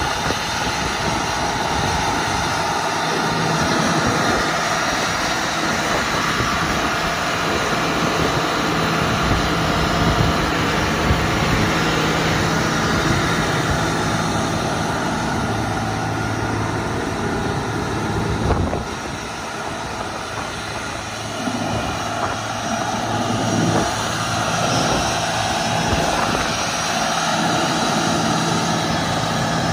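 John Deere 9460R tractor's 15-litre six-cylinder diesel engine running steadily as the tractor drives slowly across gravel, its level dipping briefly a little past the middle.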